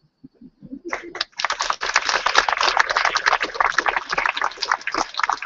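Audience applause: clapping from many hands starts about a second in and quickly fills out into steady, dense applause.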